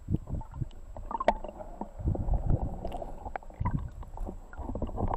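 Muffled water sloshing and irregular low bumps as heard from a camera under the water, with scattered sharp clicks throughout.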